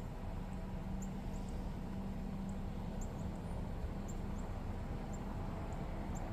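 Jeep Gladiator pickup idling, a steady low hum, with short faint high-pitched chirps from a small bird scattered throughout.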